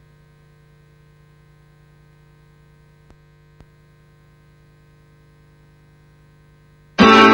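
Steady faint electrical hum from the VHS tape playback, with two small clicks about three seconds in. Near the end a strummed guitar comes in suddenly and loudly.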